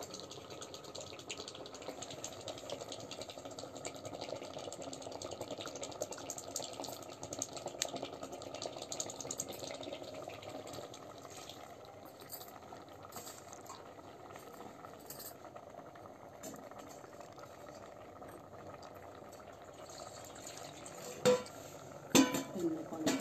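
A pot of mustard-greens saag bubbling over a wood fire on a chulha: a steady crackly simmer with fine ticks. Near the end come two sharp metal clanks that ring on, as steel utensils knock together.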